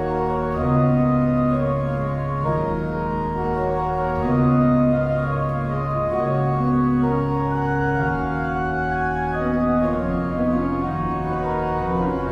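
Church organ playing a slow classical piece: sustained chords that change every second or two over held low bass notes.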